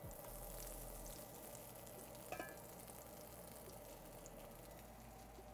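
Breaded chicken cutlets sizzling steadily and quietly in hot grapeseed oil in an enamelled cast-iron skillet, the sizzle picking up as a second cutlet is laid into the oil at the start. A faint click about two and a half seconds in.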